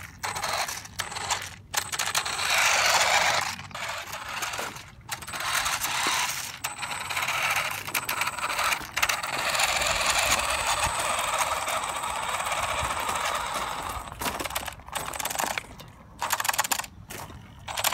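Gravel crunching and clattering under the wheels of a homemade RC snowmobile driving over loose stones, in stop-start runs with short breaks.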